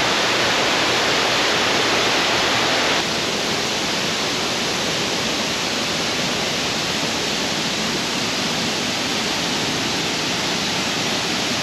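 Steady rush of running water. About three seconds in it drops a little in level and loses some of its hiss, then carries on evenly.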